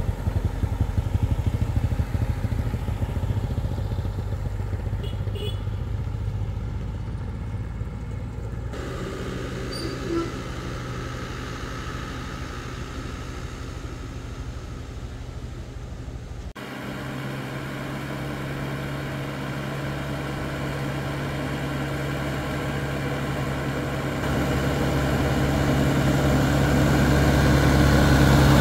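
Diesel engine of a small dump truck towing a compact excavator on a trailer. It runs steadily and fades as the truck pulls away. After a sudden change about halfway through, a truck engine is heard approaching, growing steadily louder toward the end.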